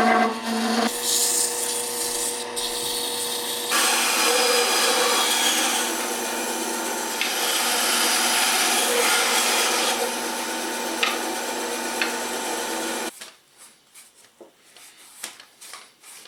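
Walnut being shaped or sanded on a running wood lathe: a steady scraping and rubbing over the hum of the spinning lathe, shifting in character a few times. It stops abruptly about three-quarters of the way through, leaving only a few faint clicks.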